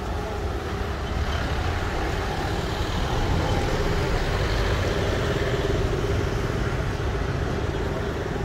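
Road traffic: a steady rumble of vehicle engines and tyres, with one engine's hum becoming more prominent about halfway through. No horn sounds here.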